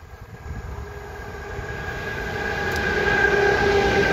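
ET22 six-axle electric freight locomotive approaching and drawing level at speed with a train of open coal wagons. Rail and wheel rumble grows steadily louder, with a steady multi-tone whine from the locomotive rising over it.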